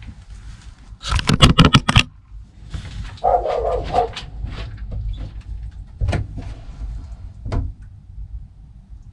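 Dog barking: a fast, loud volley of barks about a second in, then a longer, pitched bark or yelp a couple of seconds later, with a few sharp knocks after it.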